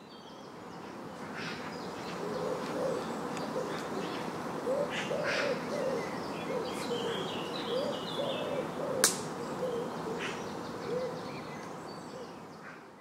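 Outdoor bird ambience that fades in and then out: many short, low hooting calls and scattered higher chirps over a steady background hiss, with one sharp click about nine seconds in.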